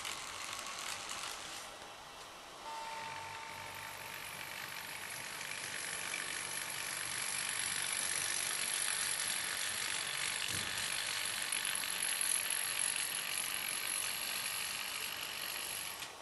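Small electric model train engines running along sectional track, giving a steady mechanical whirr and rattle of motor and wheels. It grows louder through the middle as an engine passes close by.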